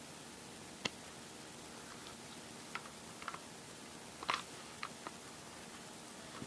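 Scattered light clicks and taps of small hard parts being handled, about ten in all and unevenly spaced, the loudest a quick cluster a little past the middle, over a steady hiss.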